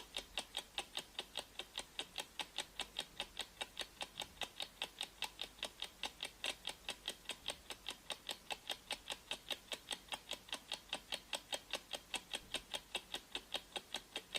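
Clock ticking sound effect of a countdown timer: quick, even ticks, about four a second.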